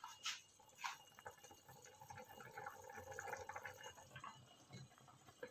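Faint sound of chicken broth splashing and dripping back into the pot as a whole boiled chicken is lifted out with a spoon, with two short splashes near the start and then an uneven trickle.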